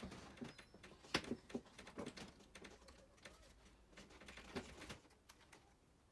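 Scattered light clicks and taps of plastic and metal RC truck suspension parts being handled and fitted by hand, at an irregular pace.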